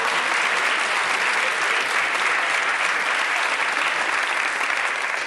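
Studio audience applauding: dense, even clapping.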